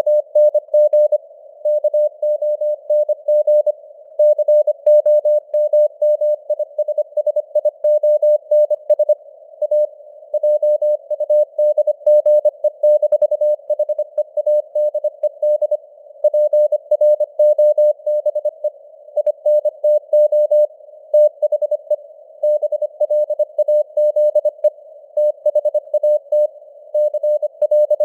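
Morse code (CW) sent at 25 words per minute: a single steady tone keyed on and off in quick dots and dashes over a narrow band of simulated radio static. The signal strength fades up and down (QSB).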